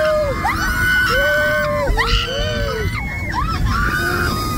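Several raft riders screaming and whooping, drawn-out cries that rise and fall and overlap one another, over a steady rushing noise.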